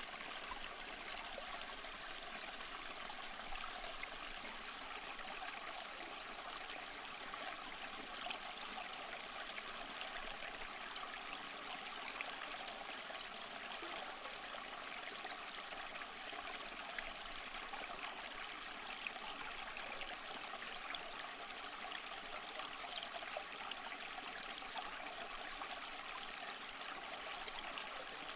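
Small stream running steadily over stones, an even rushing with fine trickling and splashing detail.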